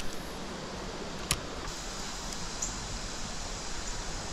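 Steady hiss of running river water over small falls, with one sharp click about a second in.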